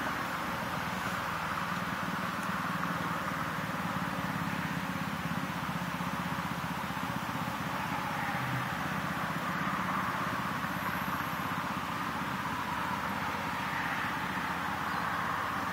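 Steady roar of distant road traffic, swelling and easing a little now and then.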